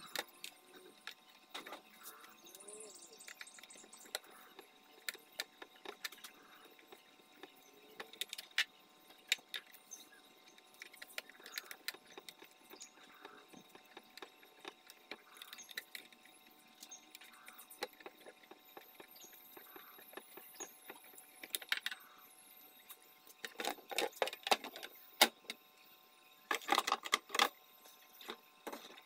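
Small scattered clicks and taps of hand work on an electronic scale's circuit board, a wire being fitted into a screw terminal. Near the end comes a denser run of louder plastic clatter as the scale's case is handled.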